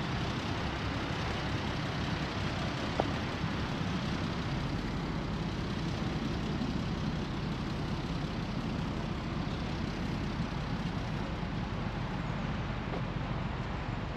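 An engine running steadily, with a single short click about three seconds in.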